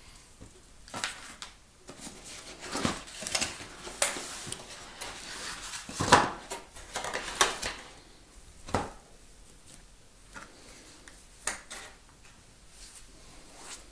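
Handling noise from unpacking a laptop: the white protective wrapping and cardboard box rustling, with irregular taps and knocks as the laptop is lifted out of its cardboard inserts. The loudest knock comes a little past the middle.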